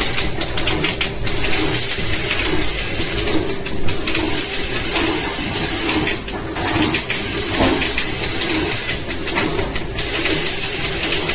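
Pillow-type flow-wrapping machine for single tape rolls running steadily: a dense, continuous mechanical whirr with occasional clicks.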